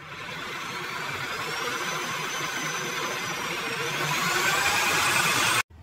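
Drill press running, its twist bit boring into the wooden crossbow body. A high whine over the motor rises in pitch about four seconds in, and the sound cuts off suddenly near the end.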